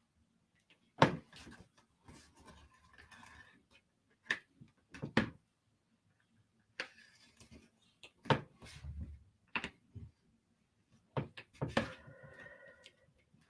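A pen drawing on a paper journal page on a table: irregular sharp taps and knocks, the loudest about a second in, with soft scratching of the pen between them.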